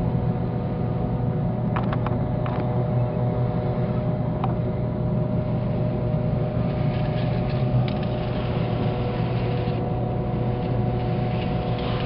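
A steady low machine hum made up of several held tones, with a few faint clicks about two seconds in and again later.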